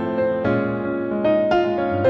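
Background piano music, with notes held and changing every half second or so.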